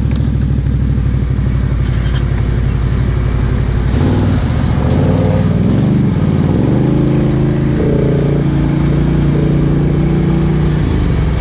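ATV engine running at low revs, then rising in pitch about four seconds in as it accelerates, and holding a steadier, higher note after that.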